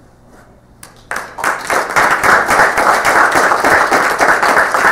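Audience applauding, starting suddenly about a second in after a brief quiet and going on as dense, steady clapping.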